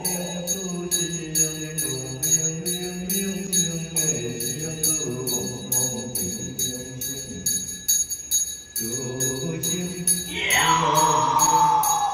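Chinese temple ritual chanting with a steady beat of small bells, about three strokes a second, over held sung notes that move in steps. A long falling tone comes in about ten seconds in.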